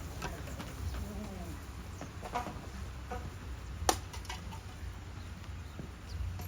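Faint bird calls over a steady low rumble, with scattered light clicks and one sharp knock about four seconds in.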